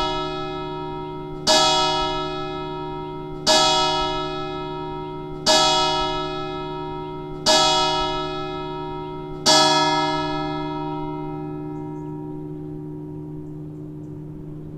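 A single church bell tolling, struck every two seconds at the same pitch, each stroke ringing on and fading; five strokes, then the ring of the last one, about ten seconds in, dies away slowly.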